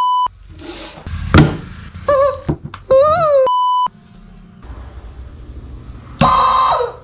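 Short electronic beeps, a thunk and brief squeals, then a low quiet hum. About six seconds in, a screaming rubber chicken blown by compressed air starts squawking loudly, bending in pitch: the chicken alarm going off.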